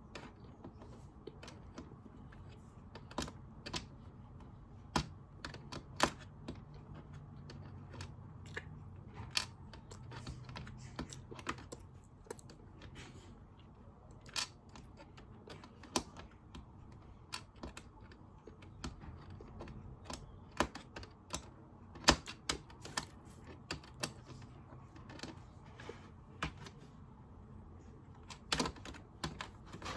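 Irregular light clicks and taps, a couple of dozen spread through, from small plastic toy-game pieces being handled and picked out of their slots, over a faint low hum.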